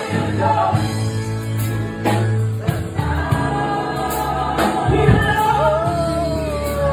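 Gospel choir singing with a live band: bass notes and drum hits under the voices. Near the end a held sung line slides down into a wavering vibrato.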